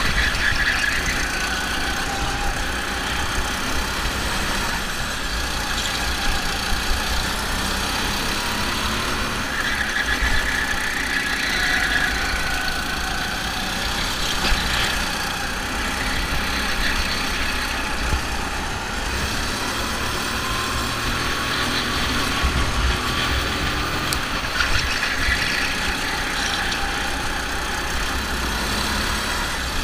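Go-kart engines running hard while racing, their pitch rising and falling again and again with the throttle, over a steady low rumble.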